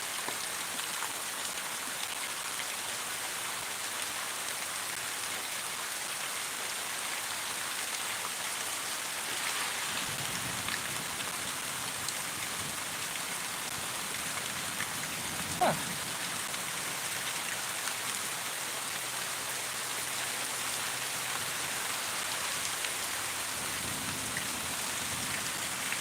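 Steady rain falling, an even hiss throughout. A short sharp sound cuts in about two-thirds of the way through, and a faint low hum joins from about ten seconds in.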